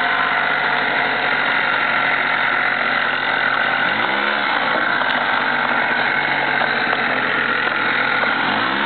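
Honda Spree's small two-stroke scooter engine held at high revs with the throttle open for a burnout, running steadily, with one brief rise and fall in pitch about four seconds in.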